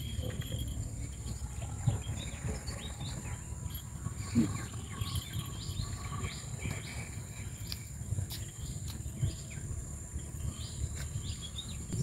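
Outdoor ambience: many short bird chirps, one after another, over a steady high-pitched insect drone and a constant low rumble.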